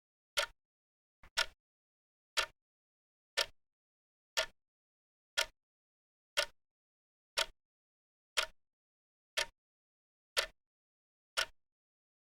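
Clock ticking steadily, one short sharp tick each second, with a faint extra click just before the second tick.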